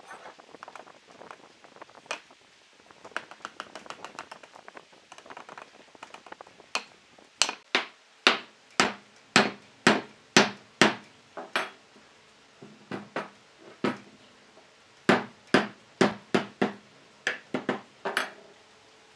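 Hammer blows on the end of a solid log post, driving a log frame's joints together: about two dozen sharp knocks at roughly two a second in three runs, after lighter knocking in the first few seconds.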